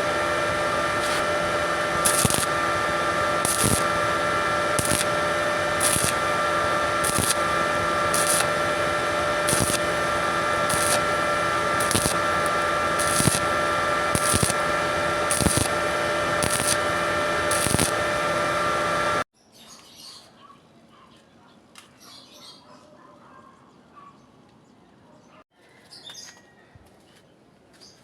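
A machine running steadily with several fixed tones and a regular tick about every 0.8 seconds; it cuts off abruptly about two-thirds of the way through, leaving only faint chirps and ticks.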